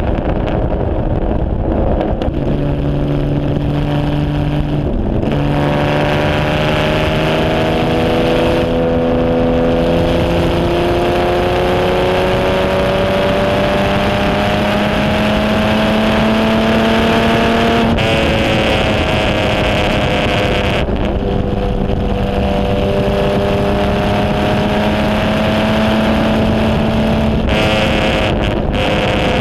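Onboard sound of the 1951 HW-Alta-Jaguar's Jaguar straight-six racing engine pulling hard, with wind rush from the open cockpit. A gear change comes a few seconds in, then the engine note climbs steadily for over ten seconds. It drops away off the throttle about eighteen seconds in and pulls again a few seconds later.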